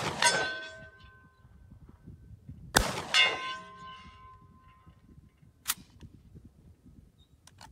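Two 12-gauge shotgun slug shots, one at the very start and another about three seconds in. Each is followed within half a second by the ringing clang of a hit on a steel plate target, dying away over a second or so. A single sharp metallic click comes near six seconds in.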